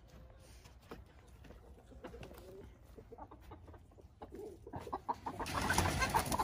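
Chickens clucking faintly, then breaking into loud squawking and commotion about five seconds in as a hand net is swept down over them.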